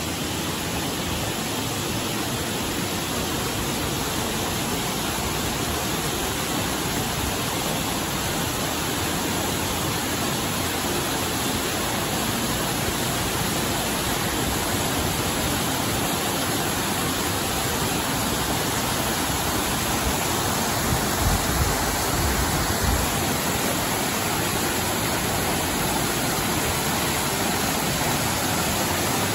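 Minnehaha Falls cascading down stepped rock ledges: a steady, full rush of falling water. A few brief low bumps on the microphone about two-thirds of the way through.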